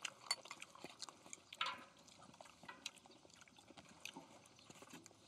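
Pork belly sizzling faintly on a cauldron-lid griddle, the fat crackling in scattered small clicks over a soft hiss, with one brief louder sound about one and a half seconds in.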